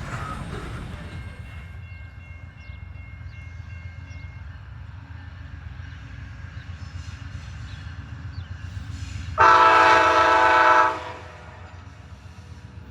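A train horn sounds one blast of about a second and a half, a chord of several notes, about two-thirds of the way in, over the steady low rumble of a train.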